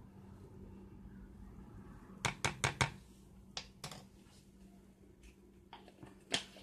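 Light clicks and taps from a measuring spoon and spice jar being handled over a plastic mixing bowl as ground cinnamon is added: four quick taps about two seconds in, two more about a second later, and a sharper knock near the end, over a faint steady hum.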